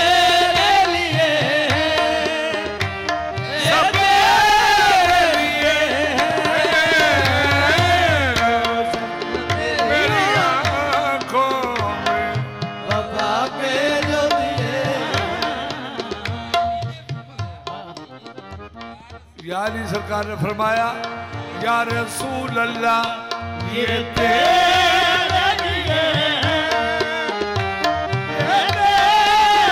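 Qawwali ensemble playing with the tabla to the fore and a bending melodic line above it. The music thins and drops in level about sixteen seconds in, then comes back in full about three seconds later.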